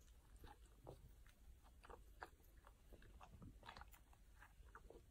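Golden retriever chewing and biting at a block of soft sponge cake: faint, irregular small clicks and smacks of its mouth.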